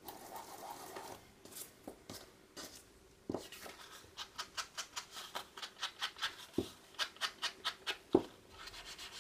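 Mini ink blending tool tapped again and again against the edge of a paper tag to ink it, light dabs about three to four a second starting about three seconds in, with a few duller knocks as it is pressed onto the ink pad.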